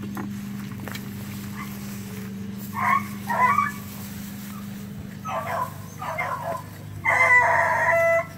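A dog barking in short bouts about three and five seconds in, then one longer drawn-out bay near the end. A steady low hum runs underneath.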